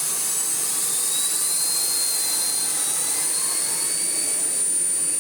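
Miele Blizzard CX1 bagless vacuum cleaner running, with a steady rush of air and a high-pitched motor whine. A fainter whine rises in pitch over about three seconds as the air-driven Turbo Tech brush head spins up. It is not a fast spinner, but it spins enough.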